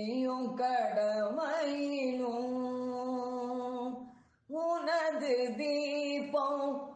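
A single voice singing a Tamil devotional song to Ayyappan, holding long drawn-out notes, with a short break about four seconds in.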